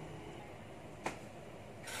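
Quiet kitchen room tone with one light click about a second in and a short brushing noise near the end.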